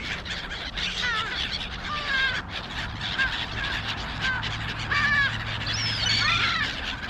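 A flock of black-headed gulls at food, many short harsh calls overlapping one after another.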